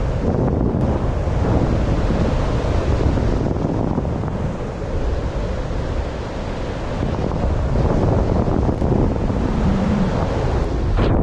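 Steady rush of wind over the microphone from the airflow of a paraglider in gliding flight, a little louder in the second half.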